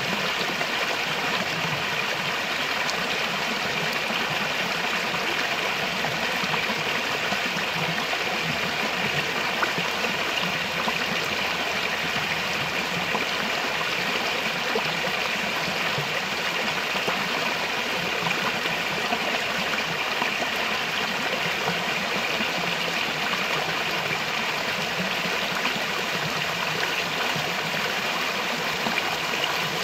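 Shallow rocky stream running over small rock ledges and low cascades, a steady sound of flowing water.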